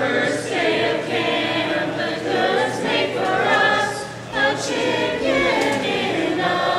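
A small group of young people singing together, several voices at once, without instruments.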